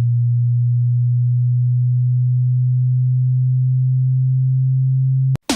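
A low, steady pure sine test tone held at one pitch, a hearing-test frequency. Near the end it cuts off with a click, and music breaks in.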